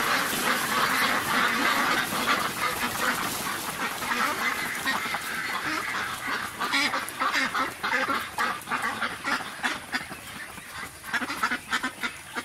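A large flock of white Pekin broiler ducks quacking together. The calls run into a dense din at first, then thin into separate overlapping quacks from about six seconds in, with a louder cluster near the end.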